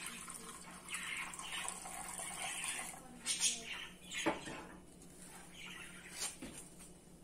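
Cooking liquid from boiled horse gram pouring out of a steel pressure cooker into a bowl, splashing for the first three seconds. A few sharp knocks follow as the metal cooker and the bowl are set down and moved.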